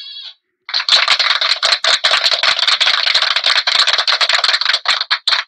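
A fast, continuous rattle of many rapid clicks, starting just under a second in and running on without a break.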